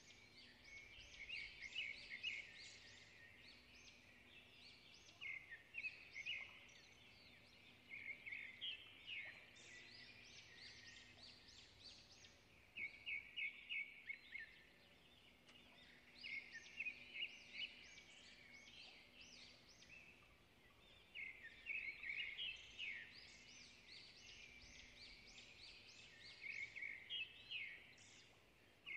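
Faint bird chirping: clusters of rapid high, quick-sweeping notes that come and go every few seconds.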